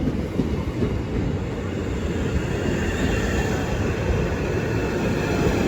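Class 466 Networker electric multiple unit running at the platform, a steady rumble of wheels on track with a faint high whine above it.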